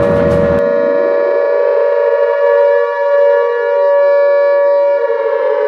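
Air-raid siren wailing, its pitch slowly rising and then slowly falling. A loud rumbling noise cuts off abruptly about half a second in, leaving the siren on its own.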